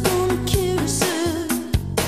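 A song playing: a wavering lead melody over sustained bass notes and regular drum hits.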